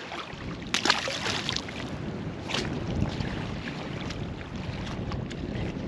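Wind buffeting the microphone over water lapping at the edge of the lake, with a short burst of noise about a second in and another at about two and a half seconds.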